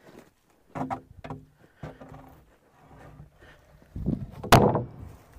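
Knocks and thumps of heavy wooden planks being handled on a plank floor, with one sharp, loud bang about four and a half seconds in.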